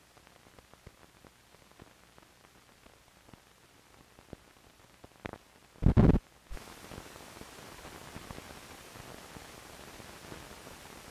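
Optical film soundtrack noise at the end of a film print. Faint scattered crackles and pops are followed by a sharp click, then a loud low thump about six seconds in, and after that a steady hiss.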